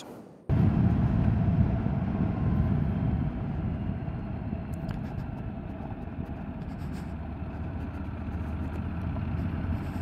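Motorcycle being ridden: a low, steady engine and road rumble that starts abruptly about half a second in, loudest at first and easing off over the next few seconds.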